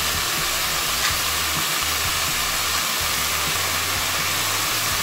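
Shredded chicken, long beans and carrot sizzling steadily in a frying pan over high heat.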